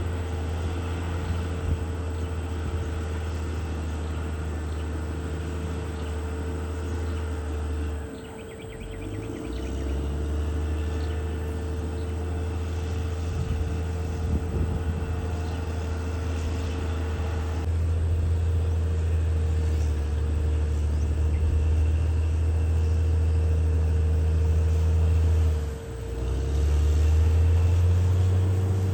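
Caterpillar D6R XL bulldozer's diesel engine running with a steady low drone and a steady whine above it. The engine note sags and picks back up twice: about eight seconds in and again near the end.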